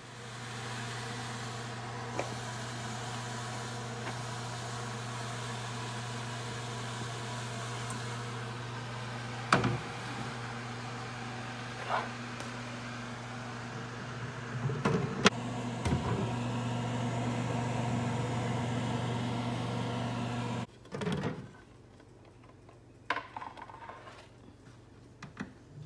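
Steady electric appliance hum with a low, even drone, a few sharp clicks and knocks over it, cutting off suddenly about 21 seconds in, followed by a thump and light handling knocks.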